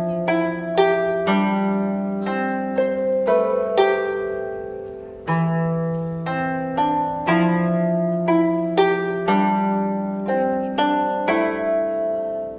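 Background music: a slow melody of plucked string notes, each struck sharply and left to ring out, over longer low notes.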